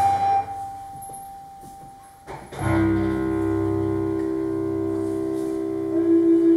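Mixed ensemble of guitars, recorders, cellos, percussion, piano and electronic sounds playing contemporary music. A loud passage gives way to one held tone that fades out. About two and a half seconds in, a sharp attack opens a steady, sustained chord.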